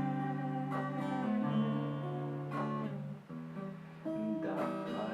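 Acoustic guitar strumming chords: three strokes about two seconds apart, each left ringing.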